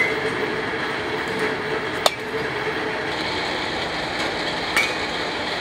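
Baseball bat striking pitched balls in a batting cage: three sharp cracks about two and a half seconds apart, over a steady background noise.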